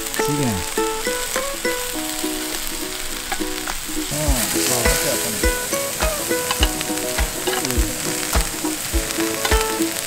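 A thick, 2 cm pork neck steak sizzling as it sears on a grill pan, a steady hiss. Over it runs background music with short plucked notes, and a steady beat joins about four seconds in.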